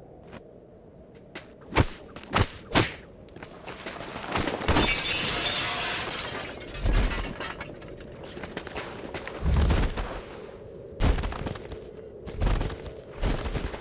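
Fight-scene sound effects: a rapid string of sharp hits and heavy impacts, with a longer crash of breaking glass and debris running for a couple of seconds from about four and a half seconds in, then more heavy blows.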